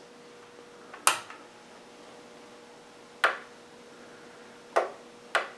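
Four short sharp plastic clicks, spaced unevenly, from the front power button of an APC Back-UPS being pressed; the unit gives no response, since it no longer turns on. A faint steady hum runs underneath.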